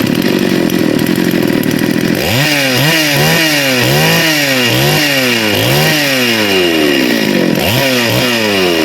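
Two-stroke chainsaw engine running, idling for about two seconds and then revved up and down over and over in quick throttle blips, with one last rev near the end. The saw starts and runs after troubleshooting.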